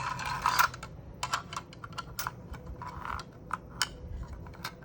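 Hard plastic magazine parts clicking and scraping as they are handled and shifted. A short run of scraping comes first, then scattered, irregular clicks.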